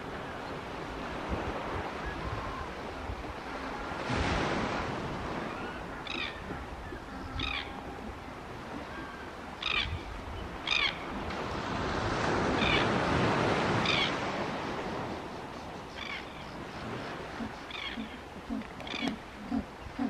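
Short, high bird calls repeat every second or two over a steady rushing noise of beach surf that swells twice. A few low pulsing calls come in near the end.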